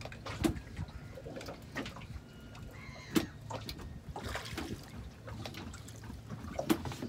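Water lapping and trickling against a small boat, with irregular knocks and clicks; the loudest knock comes about three seconds in.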